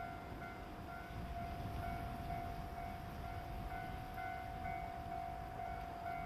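Japanese level-crossing warning bell ringing, an electronic ding repeating about twice a second over a low rumbling background.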